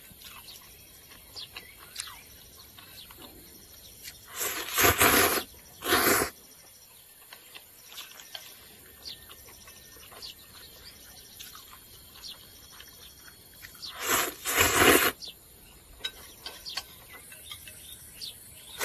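A person slurping noodles: a pair of loud, noisy slurps about four seconds in and another long slurp about fourteen seconds in, with faint chewing clicks between.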